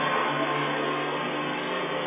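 Background music with guitar, playing steadily.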